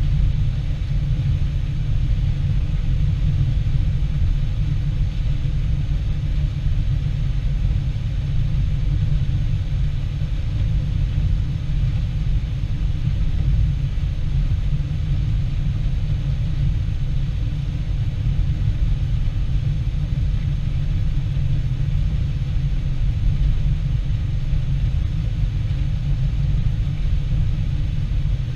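Combine harvester running steadily, a deep even rumble with a faint constant hum above it.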